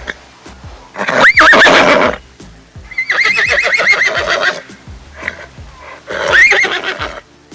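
Horse whinnying three times: a neigh about a second in, a longer, wavering whinny around three seconds in, and a shorter neigh near the end.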